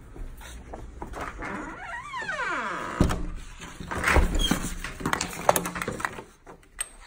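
A sliding door closing: a squeal that falls in pitch, then a heavy thud about three seconds in. After that come irregular clicks and knocks, like window blind slats rattling as they are handled.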